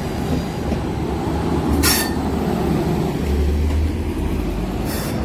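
Trenord regional train running at a station platform with a steady low rumble. Two short hisses come through, about two seconds in and again near the end.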